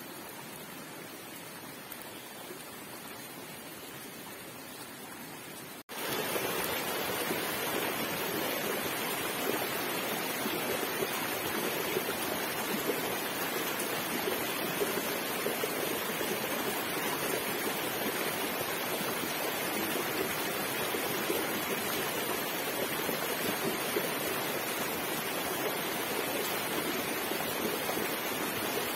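Shallow mountain stream rushing steadily over rocks, starting abruptly about six seconds in. Before that, only a faint steady outdoor hiss.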